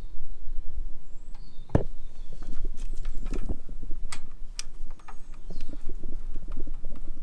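Sharp metallic clicks and taps of an Allen key on the radiator guard's bolts as they are nipped up one after another, the loudest click about two seconds in and a run of lighter taps after it. A steady low rumble and a few faint bird chirps lie behind.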